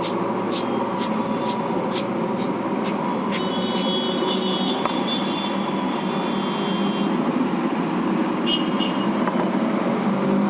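Steady background rumble and hum. Sharp clicks come at about two a second until about five seconds in, and a faint high tone is heard around the middle.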